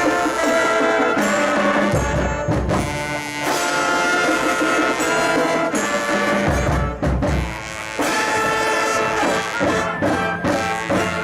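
Live marching band brass, trumpets and trombones, playing held chords, with deep low notes swelling in twice.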